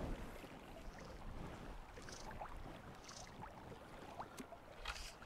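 Faint flowing river water with light wind rumble on the microphone and a few small ticks.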